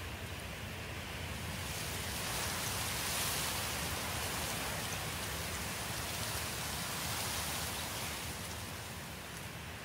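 Soft, steady rushing noise that swells about two seconds in and fades toward the end.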